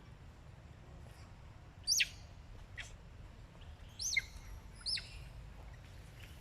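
A baby monkey crying in short, shrill, bird-like squeals, each falling quickly in pitch: three loud ones about two, four and five seconds in, with fainter ones between.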